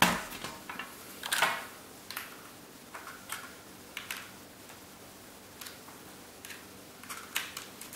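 Irregular clicks and knocks of a mechanical keyboard being handled and set down on a desk: about a dozen short, sharp sounds at uneven intervals, a slightly longer clatter about a second and a half in.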